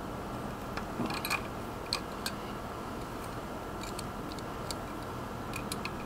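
Pliers clicking and scraping on the brass port fittings of a vacuum pump as a fitting is worked loose: scattered light metallic clicks, a quick cluster about a second in and a few more near the end.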